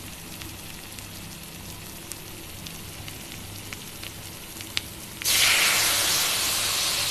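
Spice paste frying in ghee in a kadhai, a soft steady sizzle with a few small pops; the paste is fully fried and has let out its oil. About five seconds in, a bowl of milk is poured onto it and a much louder hissing sizzle starts suddenly as the milk hits the hot fat.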